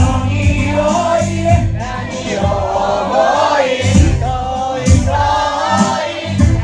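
Live reggae music at a concert: voices singing over a heavy bass line and drum hits.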